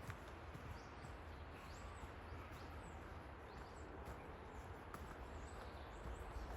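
Faint forest ambience: short, high bird chirps now and then over a steady low rumble and hiss.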